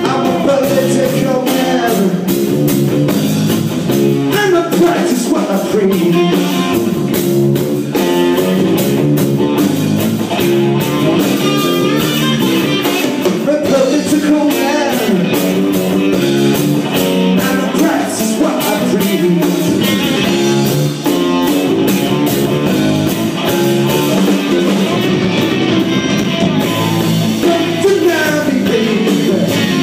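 Blues-rock band playing live: electric guitar and drums, with singing.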